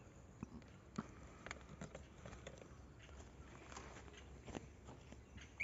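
Faint, scattered crackles and clicks of a person moving about on dry pine-needle ground.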